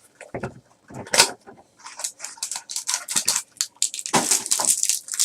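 A trading card mini box and its packaging being opened and handled: an irregular run of clicks, crackles and rustles.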